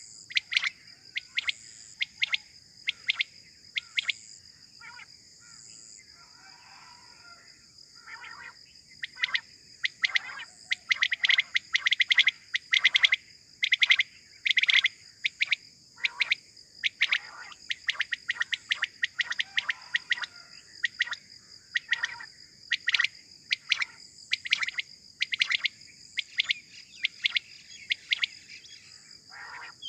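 Caged decoy quails (batair) calling to lure wild quail: many short, sharp notes in quick runs, busiest around the middle. A steady high-pitched hum runs underneath.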